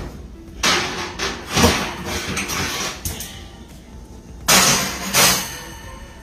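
Kitchen clatter: hard objects knocking and scraping, in a handful of short bursts, the loudest two about four and a half and five seconds in.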